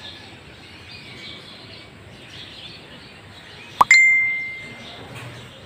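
A single bright ding near the end: a sharp click, then a clear ringing tone that fades out over about a second.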